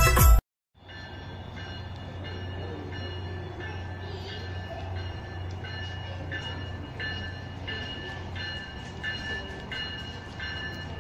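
A song cuts off; then an electronic railroad crossing warning bell dings steadily, a little under twice a second, over a low steady hum.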